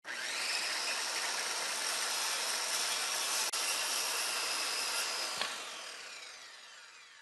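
Power saw running with a steady hissing whine, a knock about five and a half seconds in, after which it winds down with falling pitch and fades out.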